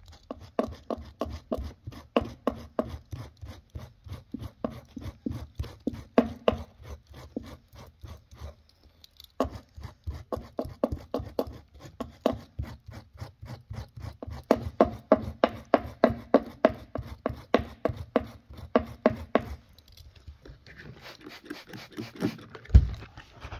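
A Stanley knife blade rubbed back and forth over dried gloss paint in carpet pile, fast even scraping strokes about four a second to loosen the fibres, with a short pause about nine seconds in. Near the end a trigger spray bottle hisses, and there is a single thump.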